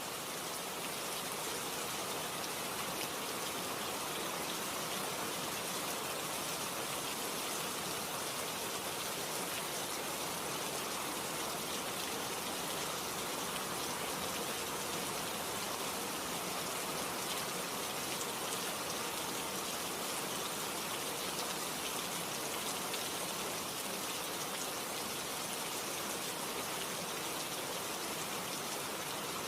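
Steady rain falling, a constant dense hiss of drops pattering on surfaces with no thunder.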